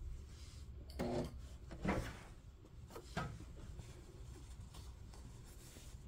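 Faint cloth-handling noises: fabric rubbing and a few soft knocks about one, two and three seconds in, as stitched fabric is pulled out from under the sewing machine's needle and lifted.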